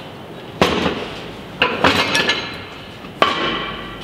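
Thick steel press plate clanking as it is handled and set down: several sharp metal knocks, the last one ringing on for most of a second.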